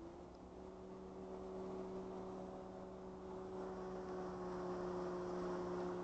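Small electric motor whirring at a steady pitch: the pan motor of a security camera turning. It spins up in a quick upward glide, holds one even hum and spins down with a short falling glide.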